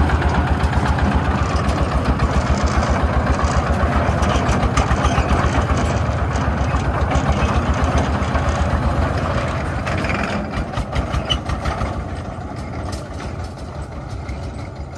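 Công nông farm truck's single-cylinder diesel engine chugging with a rapid, even beat as the truck drives off, growing fainter from about ten seconds in as it pulls away.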